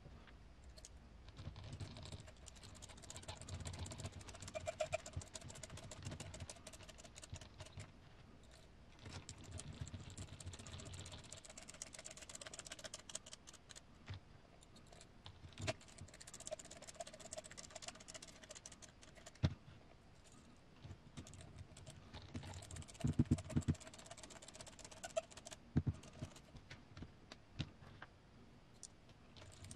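Small clicks, taps and scrapes of hard plastic parts being handled and screwed together: an RC crawler's plastic roof rack assembled by hand with small screws. Scattered light clicks throughout, with a few louder knocks, one about two-thirds of the way in and a quick cluster shortly after.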